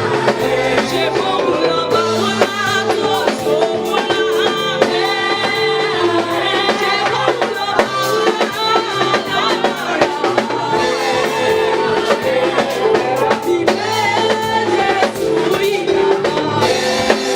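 Church music with singing and a drum kit keeping a steady beat.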